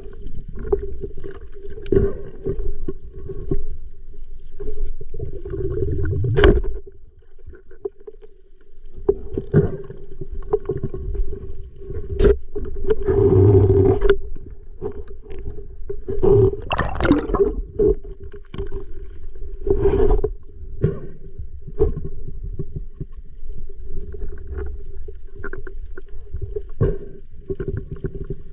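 Underwater sound picked up by a diver's camera: muffled water rumble with a steady hum, broken by irregular knocks and short bursts of bubbling and gurgling, the longest about halfway through.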